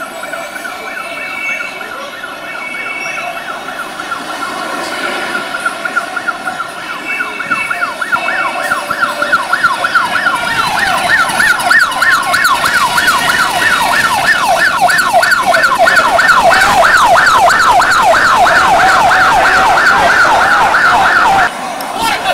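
Fire-department rescue van's siren in a fast yelp, about four rising sweeps a second. It is faint at first and grows steadily louder as the van approaches and passes, then cuts off suddenly near the end.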